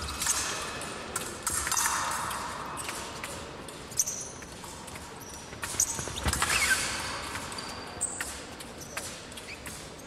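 Épée blades clicking and clashing with brief metallic rings, mixed with fencers' feet stamping. There is a sharp clash about four seconds in and a heavy stamp about six seconds in.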